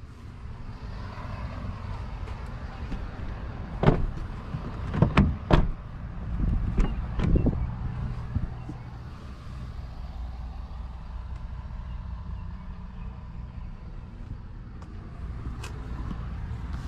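A few sharp knocks and thumps, about four to seven and a half seconds in, from someone getting out of the back seat and into the driver's seat of a Toyota Tundra pickup, over a steady low rumble.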